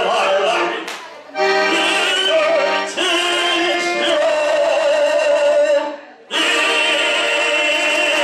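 Piano accordion playing a melody over sustained chords, broken by two short pauses, about a second in and again about six seconds in.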